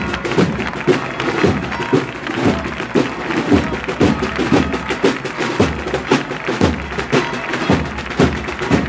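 Processional band music with a steady bass drum beat about twice a second, and a crowd clapping.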